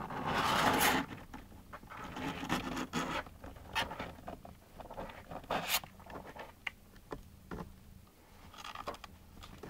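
Scratchy rustling and scraping of kittens scrabbling about in a cardboard box while a hand rubs them. A louder rustle comes in the first second, then scattered light scratches.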